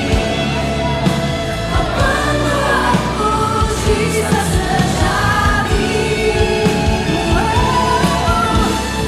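Christian worship song: singers carrying a gliding sung melody over steady instrumental accompaniment.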